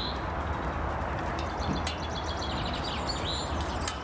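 Woodland birds singing: a rapid trill of short high notes and a few chirps, over a steady low rumble.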